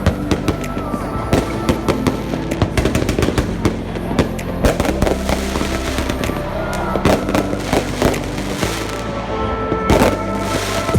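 Aerial fireworks exploding, many sharp bangs in quick irregular succession, over background music with held tones.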